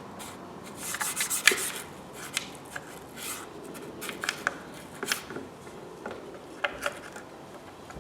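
Scrubbing inside a Nissan Micra engine's cylinder head, in short bursts of scratchy strokes, working off black oily carbon build-up.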